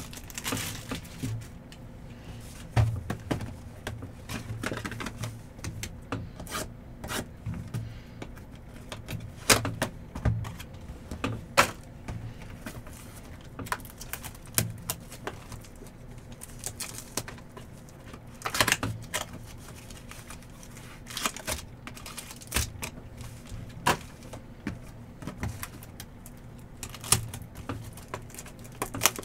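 Trading cards being handled and sorted by hand: irregular clicks and taps as cards are flicked through and set down, over a faint steady low hum.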